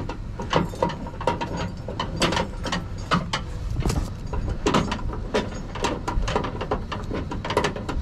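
Toyota Tacoma's under-bed spare-tire hoist being cranked by hand through the bumper with the jack-handle extension rod, giving a rapid, uneven run of ratcheting clicks as the mechanism turns.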